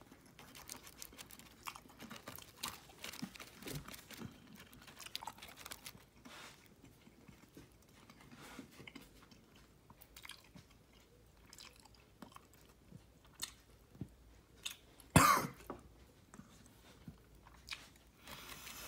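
A person chewing crispy fried chicken tenders: small crunches and mouth clicks throughout, with one louder sharp sound about three-quarters of the way through.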